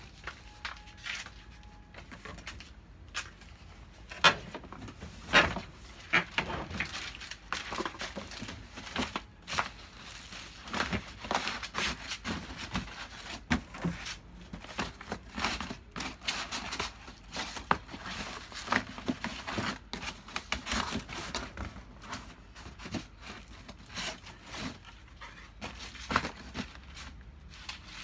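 Bubble wrap and paper crinkling and rustling as a cardboard box is packed by hand, with irregular sharp crackles throughout.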